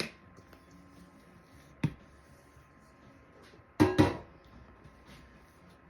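Four sharp knocks of kitchen tools or dough against the worktop: one at the start, one a little under two seconds in, and a louder quick pair just under four seconds in. A faint steady tone sounds beneath them.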